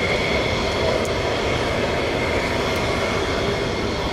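Panavia Tornado IDS's twin RB199 turbofan engines running on the runway: a steady, loud jet rumble with a high, even whine over it.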